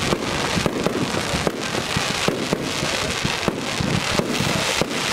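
Professional fireworks display: a dense run of bangs and pops, several a second, over a continuous hiss and crackle from ground fountains spraying and aerial shells bursting.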